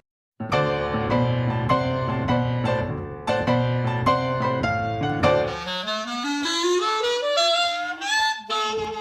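Instrumental music cutting in after a brief silence, with a melody that slides steadily upward in pitch over the last few seconds.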